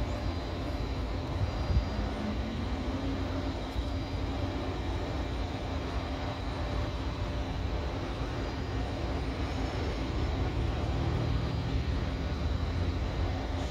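Airbus A321neo's jet engines running at low power on the ground: a steady noise with a faint, thin high whine. A brief thump about two seconds in.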